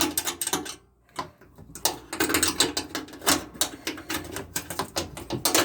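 Irregular clicking and rattling of plastic and metal washing-machine parts being handled and fitted together by hand, with a short lull about a second in.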